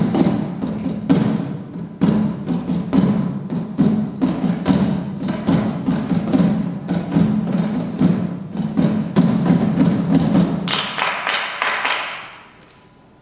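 Music with a steady percussive beat of thuds and knocks over a sustained low tone. Near the end it brightens briefly with a hissing, cymbal-like wash, then dies away.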